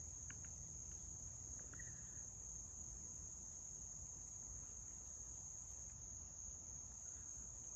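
A steady, unbroken high-pitched insect chorus, such as crickets trilling, with a couple of faint small ticks in the first two seconds.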